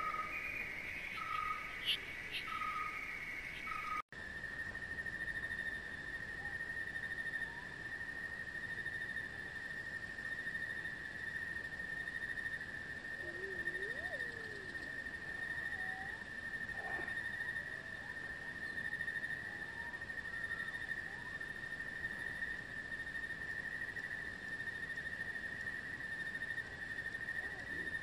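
Insect chorus: a rhythmic chirping for the first four seconds, then, after an abrupt change, a steady high-pitched trill with a few faint bird calls.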